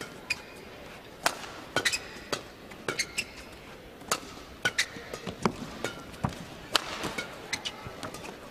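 Badminton rally: rackets striking a shuttlecock back and forth in sharp cracks, roughly one or two a second, with short shoe squeaks on the court floor over a low crowd murmur.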